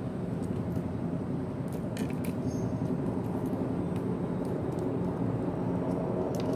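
Steady low rumble, with a few light clicks and rustles of clothes being handled about two seconds in.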